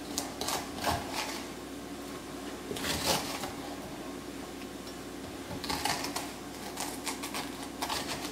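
Metal spoon scraping seeds and stringy pulp out of a halved raw pumpkin, in several quick bursts of strokes: at the start, around three seconds in, and again through the last few seconds. A steady low hum runs underneath.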